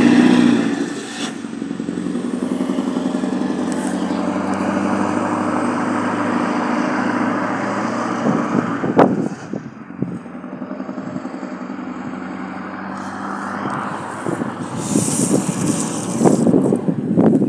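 A cabover truck's engine running, its hum fading within the first second or so as it pulls away, followed by steady road and traffic noise. A single knock about nine seconds in, and handling noise on the phone near the end.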